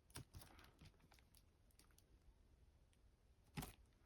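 Near silence with a few faint, scattered clicks and taps, one a little louder about three and a half seconds in.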